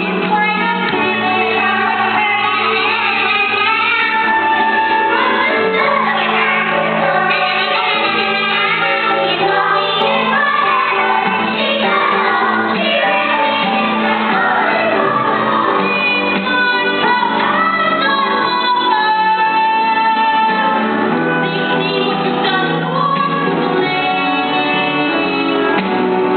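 A woman singing a musical-theatre song over instrumental accompaniment, with the melody moving up and down in long held phrases.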